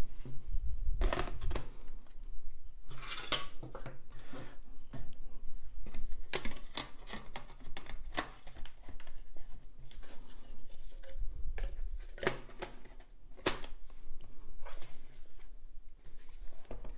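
Handling noise from fitting the aluminium bottom case back onto a 2008 MacBook and then picking the laptop up: a string of short metal clicks, taps and scrapes, with a few dull knocks against the table.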